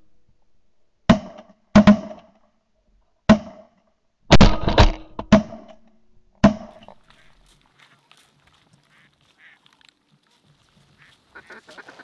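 Volley of shotgun shots from several hunters shooting at a flock of ducks, about seven sharp blasts spread over the first six and a half seconds, some coming close together. Quacking begins near the end.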